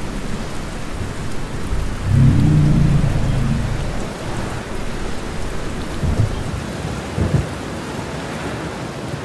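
Thunderstorm: steady heavy rain, with a loud low rumble of thunder about two seconds in that lasts a second or so, followed by two short, sharper low thumps a few seconds later.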